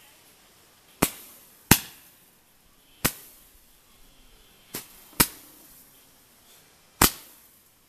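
Fireworks going off: six sharp bangs at uneven intervals, one of them fainter, each trailing off briefly.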